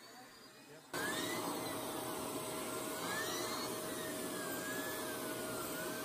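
Shark Navigator Professional Lift-Away upright vacuum switched on about a second in, then running steadily with a constant whine, its pet brush tool working over a carpeted stair.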